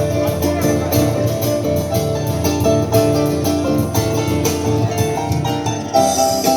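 A harp playing, a dense run of quick plucked notes.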